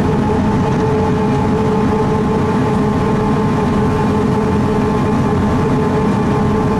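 Pikes Peak cog railway's diesel railcar running steadily as it climbs, heard from inside the car: a constant low rumble with a steady hum over it.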